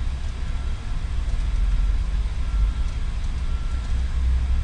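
Steady low rumble with a faint hiss: the background noise of the recording, with no clicks or other events standing out.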